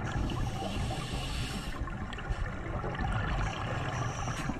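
Scuba regulator exhaust bubbles heard underwater: a gurgling, rushing hiss of bubbles over a low rumble, loudest in about the first two seconds, then easing to a lower bubbling with a few small clicks.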